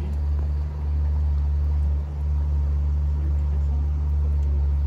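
Motor of a wooden canal boat under way, running as a steady low drone.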